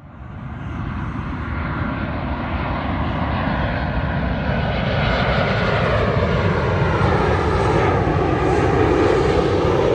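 Boeing 737-800's CFM56-7B turbofan engines on landing approach, a rumble and hiss building steadily louder as the airliner closes in low overhead, with faint tones slowly sliding in pitch through the jet noise.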